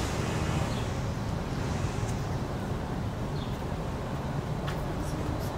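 Steady low rumble of outdoor background noise, with a few faint short high chirps over it.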